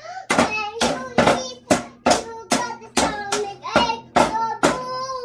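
A small child sings while beating a plastic toy drum kit with sticks, striking about twice a second.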